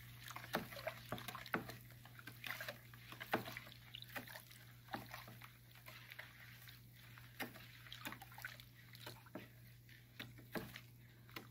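Faint sloshing and small splashes of salted dongchimi brine being stirred with a wooden spatula in a plastic tub, with irregular soft clicks of the spatula throughout.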